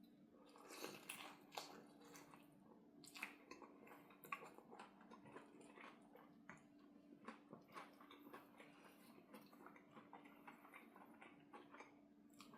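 Close-miked eating: quiet, wet bites and chewing, many short smacking clicks one after another, over a faint steady hum.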